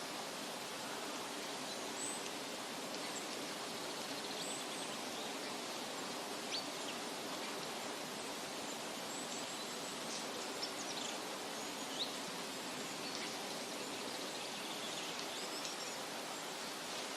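Steady rushing noise, like a nature-ambience track of running water, with faint, scattered high bird chirps.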